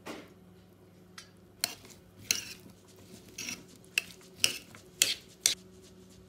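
A metal spoon clinks and scrapes against a ceramic baking dish while tossing diced potatoes and peppers, with about seven sharp clinks spread over several seconds. A brief pour of olive oil comes at the start.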